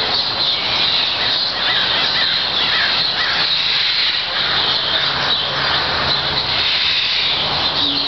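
A dense, steady chorus of many birds calling and chirping at once, with harsh caw-like calls among them.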